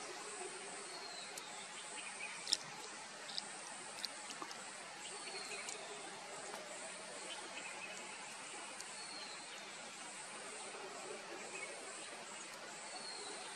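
Natural ambience: a steady high insect hiss, with a bird's short, high, falling note repeated about every four seconds, and a few sharp clicks between two and four seconds in.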